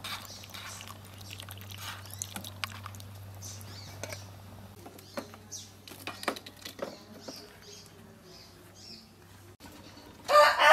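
Small birds chirping faintly, with scattered light clicks over a steady low hum. A loud rushing noise breaks in near the end.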